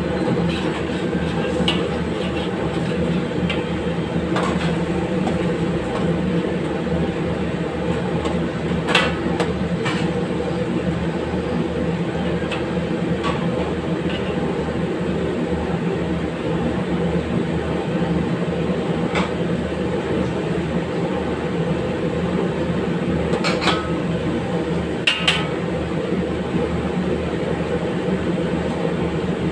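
Steady low roar of a commercial gas kitchen range, with a metal ladle clinking against a steel wok a few times as chicken curry is stirred.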